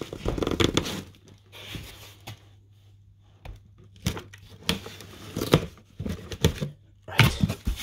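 Cardboard packaging being pulled and torn open by hand: a run of irregular rips and scrapes with quieter gaps between them.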